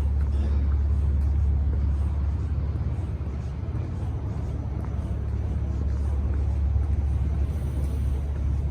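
Outdoor street ambience: a steady low rumble with a faint even hiss above it.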